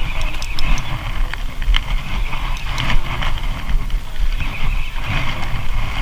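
Wind buffeting the microphone in gusts over open sea, with water hissing and sloshing around the boat and a few light clicks.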